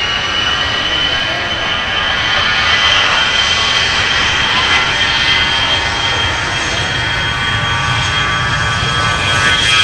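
Twin General Electric TF34 turbofans of an A-10 Thunderbolt II at high power as it accelerates down the runway on its takeoff roll: a steady high whine over the roar, with a low rumble growing louder toward the end as the jet draws closer.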